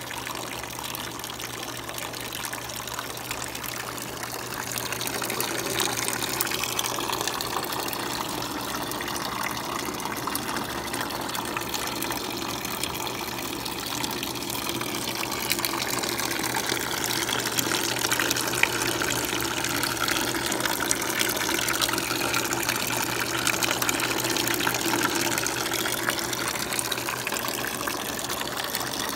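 Garden hose stream pouring into the water trough of an evaporative swamp cooler, filling the reservoir before start-up: a steady splashing gush of water, louder from about five seconds in.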